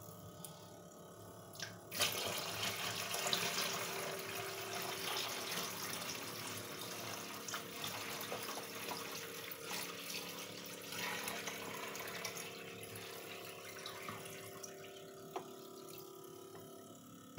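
Water running from a tap to fill a container. It starts suddenly about two seconds in, runs steadily and stops shortly before the end.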